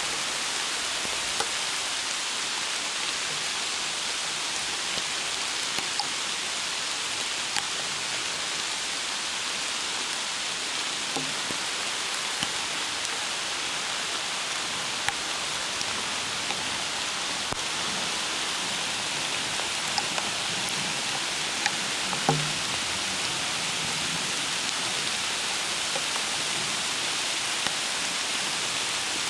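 Steady rain falling through the trees, an even hiss with scattered louder drips close by.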